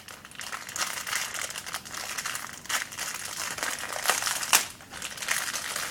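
Packaging crinkling and rustling as it is handled and opened, with a few sharper crackles, the loudest about four and a half seconds in.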